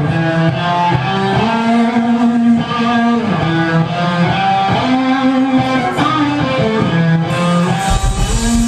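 Live electric guitars playing a melodic instrumental rock passage of picked notes and chords, loud and steady. Near the end cymbals and a low drum thump come in as the drums join.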